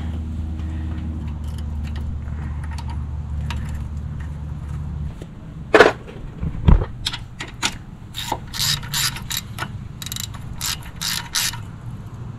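Hand ratchet clicking in quick runs as a socket turns in the brake hose bracket bolt, after two sharp metal knocks. A steady low hum stops about five seconds in.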